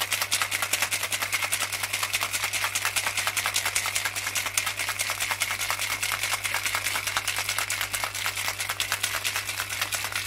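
Ice cubes rattling hard inside a metal cocktail shaker in a fast, steady shake that runs without a break. The ice is churning an espresso martini mix of espresso, vodka and coffee liqueur, shaken long to build froth.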